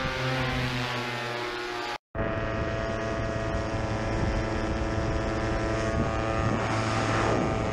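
Paramotor engine and propeller running steadily at high power. The sound cuts out for a split second about two seconds in, then carries on.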